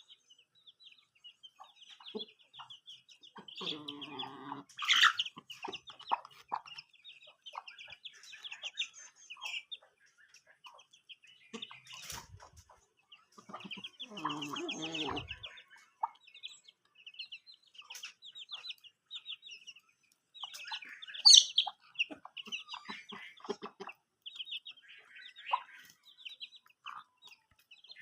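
Chicks peeping almost without pause while a hen clucks, with two longer, lower clucking calls about four and fourteen seconds in and a sharp, loud call near twenty-one seconds.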